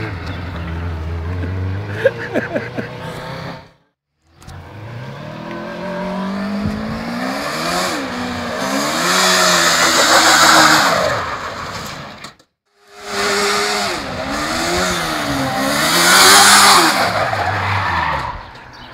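Suzuki GSX-R 400 inline-four motorcycle engine in a go-kart, revved hard up and down in repeated rising and falling swoops as the kart drifts, with tyre squeal at the loudest peaks. The sound cuts out twice, briefly.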